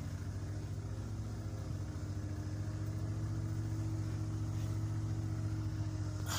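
An engine running steadily, a low even hum. Near the end there is a brief rustle of the phone being handled.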